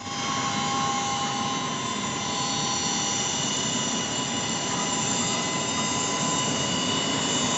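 Airliner jet engines running steadily: a constant rushing noise with several high, unchanging turbine whines over it.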